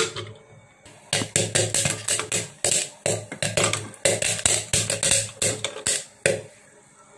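Dried sweetcorn kernels popping inside a closed metal pressure cooker: sharp, irregular pops and knocks against the pot and lid that come thick and fast from about a second in and thin out near the end.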